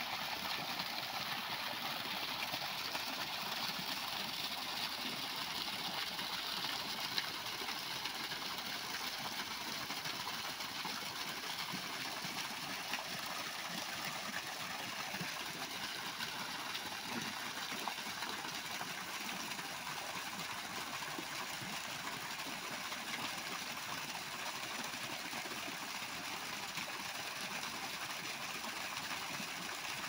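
Water gushing from a hose pipe and splashing into a shallow muddy pool as it fills, a steady, even rush of falling water.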